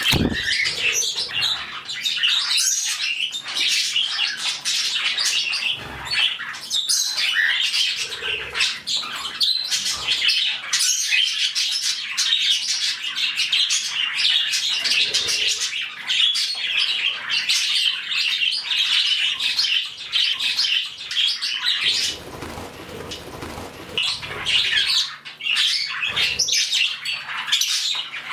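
A flock of pet budgerigars chattering, chirping and squawking nonstop, many birds calling at once. Partway through comes a few seconds of rustling noise.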